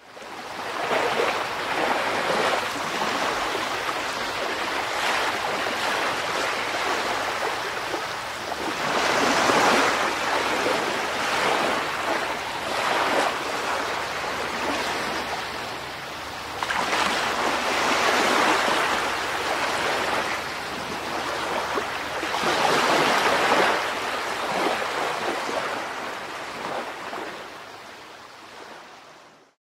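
Sea waves washing onto a shore, rising and falling in slow surges every few seconds. The sound fades in at the start and fades out near the end.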